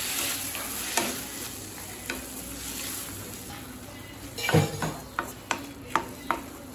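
Chopped onions, tomatoes and dried red chillies sizzling in oil in a kadai as a spatula stirs them, scraping through the pan. In the second half the spatula knocks sharply against the pan several times.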